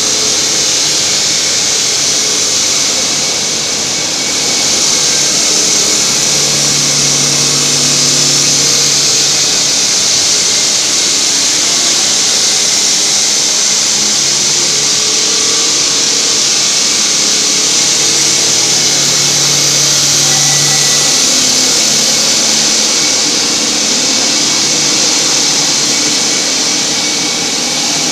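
Diamond saw cutting reinforced concrete: a steady, loud, high-pitched grinding hiss from the blade, with a low motor hum that swells twice.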